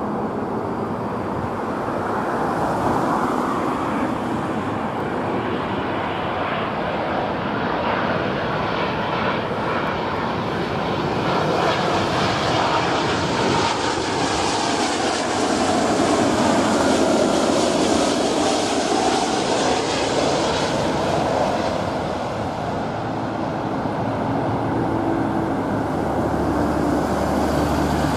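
British Airways Boeing 777-236ER twin-engine jet on final approach, its engine noise building to a loud, hissing peak as it passes low overhead about halfway through, with a pitch that falls as it goes by, then easing as it flies on toward the runway.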